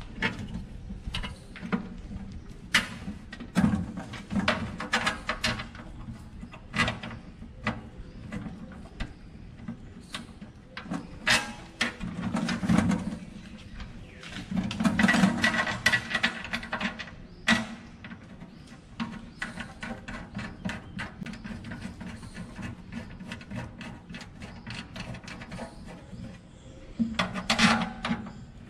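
Irregular clicks and knocks of screws and hands working inside a powder-coated steel pannier box as it is screwed onto its mounting bracket, with a few longer bouts of scraping and rattling against the metal.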